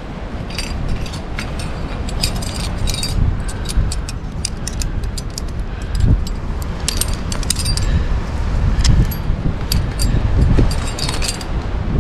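Metal climbing gear clinking and jangling: aluminium carabiners and cams knocking together on the harness rack in many quick, irregular clinks as the climber handles a quickdraw. A steady low rumble runs underneath.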